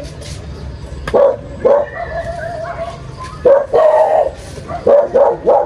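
A dog barking several times in short, loud barks, in groups about a second in, near the middle and near the end.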